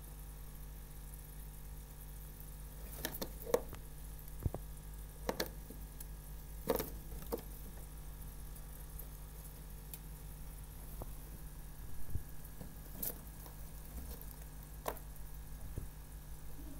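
Pet rats' feet and claws clicking and tapping on the wire bars of their cage as they climb and cling to the door: a handful of scattered light taps, most in the first half, over a steady low hum.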